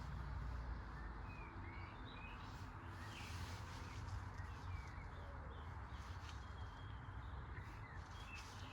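Small birds chirping now and then over a faint, steady low rumble and hiss.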